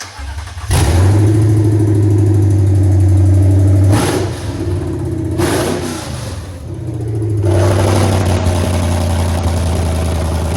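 Lexus IS F 5.0-litre V8 exhaust revved up and held at a steady higher engine speed for about three seconds, dropped back toward idle, then revved and held again near the end.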